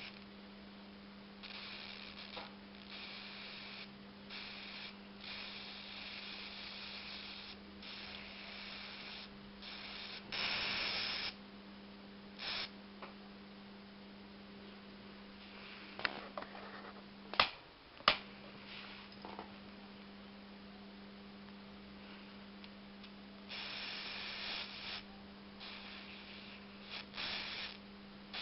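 High-voltage sparks from a CRT television's flyback arcing onto a circuit board: irregular hissing, sizzling bursts, some brief and some lasting a few seconds, over a steady low hum. A little past halfway come two sharp snaps, with the hum cutting out briefly between them, as the TV's high-voltage safety shutdown trips.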